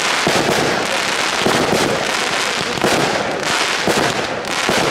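Fireworks display: aerial shells bursting in quick succession, a dense run of bangs and crackling with stronger bangs standing out every second or so.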